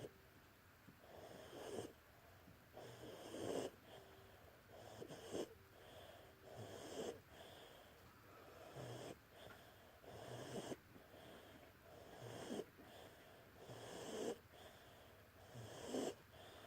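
A sleeping pug snoring: a rasping snore every one and a half to two seconds, nine in all.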